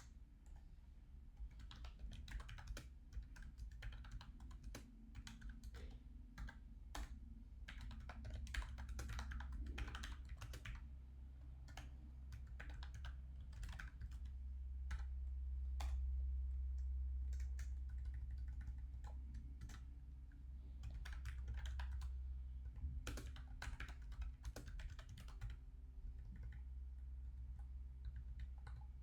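Typing on a computer keyboard: key clicks in irregular runs with short pauses between them, over a steady low hum.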